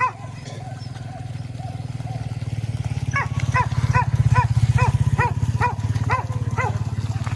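A hunting dog barking repeatedly in a steady rhythm, about two to three barks a second, starting about three seconds in, with fainter short yelps before it. A loud steady low rumble runs underneath.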